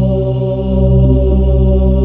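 Meditation music: a steady drone of sustained, layered healing tones, with a low hum that swells and dips slowly and no beat.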